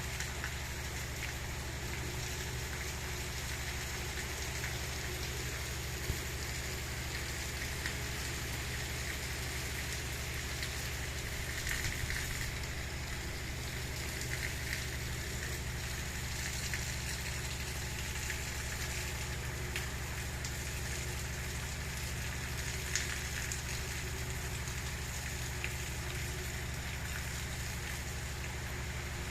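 Steady gentle rain falling, a continuous hiss with a few faint drop ticks, over a steady low hum.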